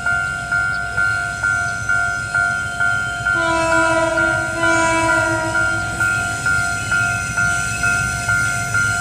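Level-crossing warning bell ringing steadily at about two dings a second. A freight train's horn sounds one chord for about two and a half seconds, starting a little over three seconds in.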